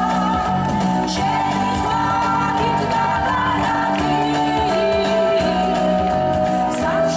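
Women's vocal group singing a song into microphones, amplified, over instrumental accompaniment, with long held notes.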